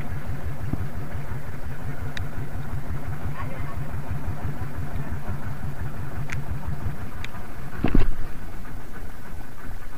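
A small boat engine running at a steady idle, a low throb of quick, even pulses. A few sharp clicks sound over it, and a louder knock comes about eight seconds in.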